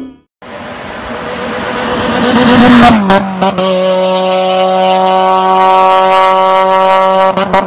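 A car engine at high revs, building in loudness over about three seconds, then holding a steady high-pitched note, with a rapid stuttering in the sound near the end.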